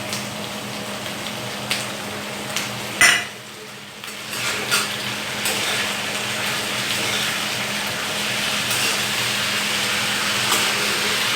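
Potatoes, peas and capsicum sizzling as they fry in a pan, stirred with a spoon that clinks and scrapes against it. There is a sharp clink about three seconds in, after which the sizzle briefly dips and then builds back up.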